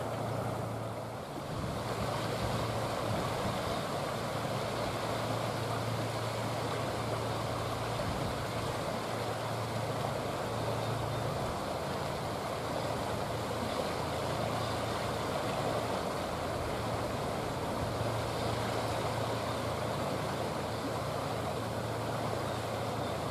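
Steady rush of flowing river water, with a low hum underneath that swells and fades slowly.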